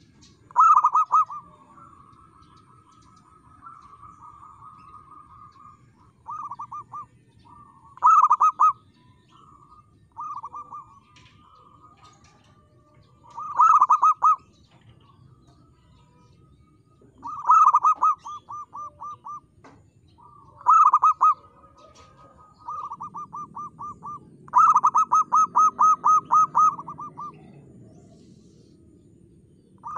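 Zebra dove (perkutut) cooing in its clear 'crystal' voice: about eight phrases, each a quick run of short, clipped coos, recurring every few seconds. Near the end comes the longest, a steady string of about a dozen even notes.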